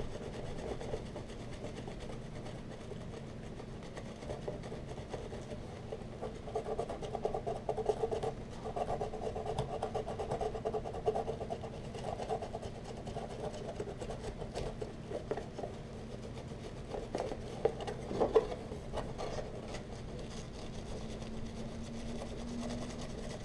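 A scratch-off card being scratched off inside a cardboard box: a fast, repeated rasping and rubbing that comes in spells, busiest in the middle, with a few sharp knocks later on.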